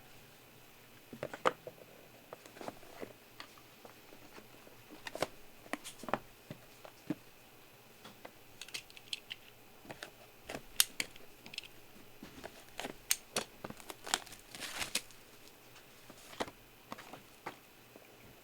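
Trading-card packaging and cards being handled: scattered crinkling, tearing and light plastic and cardboard clicks, busiest in the second half.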